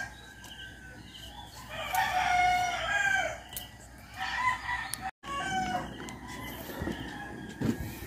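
Rooster crowing: one long crow a couple of seconds in, followed by a few shorter, fainter calls. The sound drops out for an instant a little past halfway.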